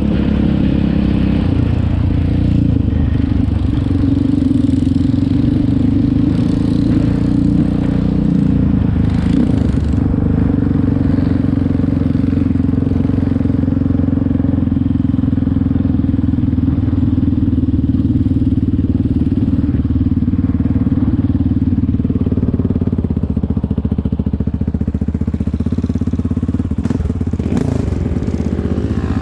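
Single engine of a 700 sport quad (ATV), heard from on board, running steadily under throttle as it rides, easing off slightly about three-quarters of the way through.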